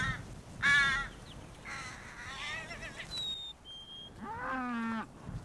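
A crow-like bird calling: about four harsh caws at uneven intervals, the last one longer and lower. A smaller bird gives two thin, high whistles in the middle.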